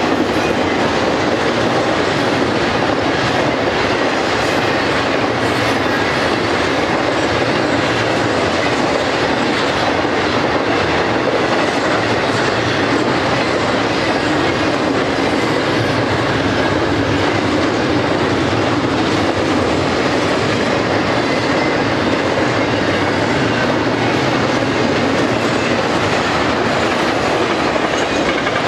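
Double-stack intermodal freight train's loaded well cars rolling past, with a loud, steady rumble and clatter of steel wheels on the rails that never lets up.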